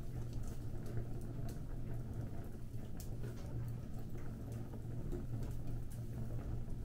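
Fire crackling, with scattered sharp pops and ticks over a steady low rumble.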